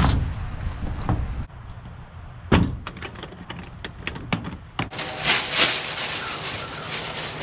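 Wind rumble on the microphone, then a knock as the lid of a plastic DeWalt tool case comes down and several clicks as its latches are snapped shut, followed by a thin plastic shopping bag rustling.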